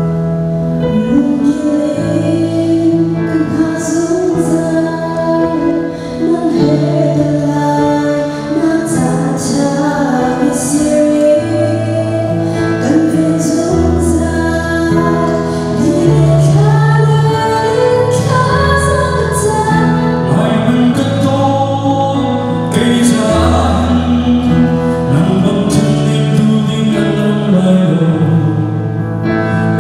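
A woman and a man singing a duet into microphones over backing music with long held bass notes. She sings through the middle, and the man takes the melody near the end.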